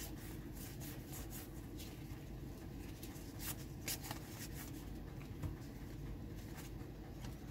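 Trading cards being sorted and flipped through by hand: faint slides and a few light clicks of card stock over a steady low hum.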